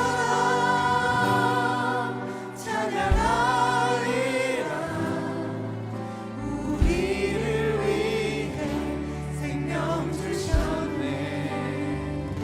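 Korean contemporary worship music: a worship team singing with wavering, sustained voices over a keyboard-and-bass band, with a low drum hit every few seconds.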